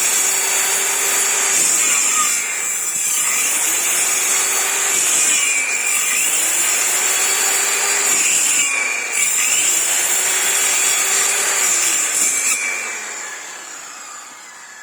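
Electric power tool cutting wood, its motor whining steadily while the pitch of the work rises and falls four times in repeated passes. It stops near the end and winds down.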